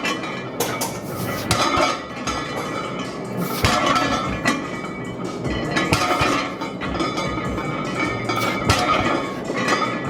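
Loaded weight plates clinking and clanking with each rep of a heavy row, the knocks coming irregularly about once a second over a steady background din.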